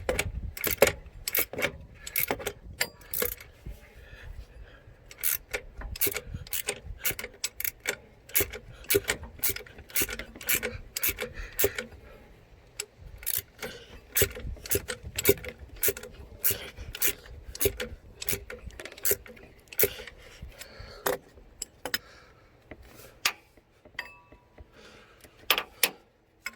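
Hand ratchet clicking in irregular strokes, two or three clicks a second, with metal clinks, as the belt-tensioner bolt on a 1995 Cummins engine is tightened to take up a new belt.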